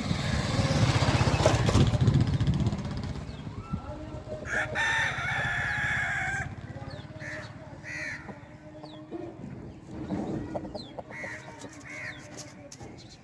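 A low rumbling noise in the first few seconds, then a loud bird call held on one pitch for about two seconds, with short bird calls and chirps after it.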